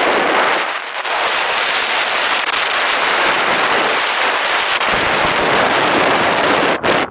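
Loud, crackling rush of wind buffeting a camera microphone on the move during an electric unicycle ride. It cuts off suddenly near the end.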